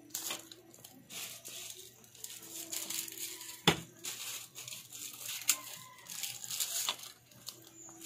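Sardine broth boiling hard in a nonstick pan, a steady crackling bubble, with one sharp knock a little under four seconds in.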